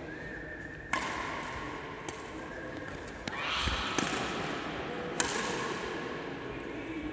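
Badminton rackets striking a shuttlecock in a rally, about five sharp hits roughly a second apart, echoing in a large sports hall. The hits stop a little after halfway, when the rally ends.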